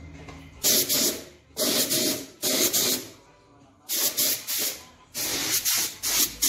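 Compressed-air spray gun hissing in about six short bursts, each half a second to a second long, as the trigger is pulled and released on each pass, spraying clear gloss lacquer.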